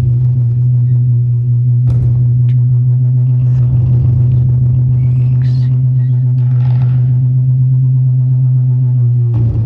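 A loud, steady low drone from amplified experimental noise music, holding one deep pitch, with a sharp click about two seconds in and some fainter crackle and hiss over it.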